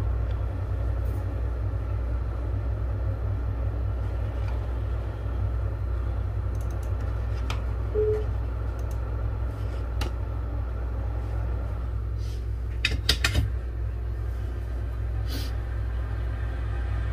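Steady low rumble, with a few light clicks and a quick run of sharp taps about thirteen seconds in, from small tools handled on a chip-reballing stencil holder.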